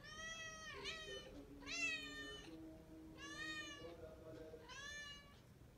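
A cat meowing four times, high drawn-out calls that bend down and up in pitch.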